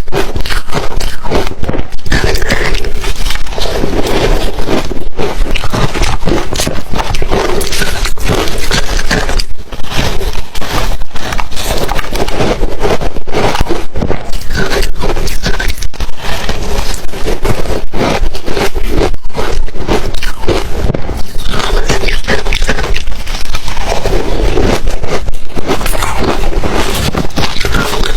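Ice being bitten and chewed: loud, dense crunching and crackling that goes on without a break.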